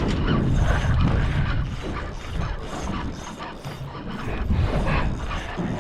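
Wind buffeting the microphone in a low, uneven rumble, with irregular knocks and rattles of handling on a boat.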